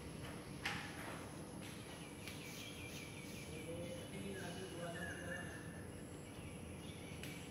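Outdoor background noise with a thin, steady high tone, a sharp click about a second in and a few softer ticks, and faint short chirps near the middle.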